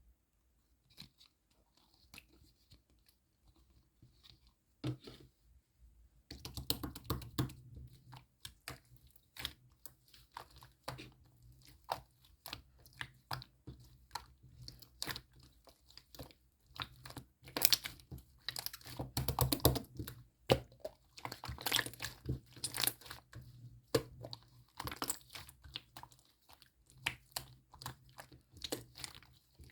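Water slime being played with by hand, giving a stream of small wet clicks and sticky pops. A few faint clicks come first, then about six seconds in the clicking turns near-continuous, busiest and loudest past the middle.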